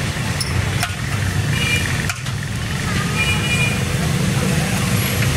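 Steady low rumble of street traffic, with a few sharp clicks.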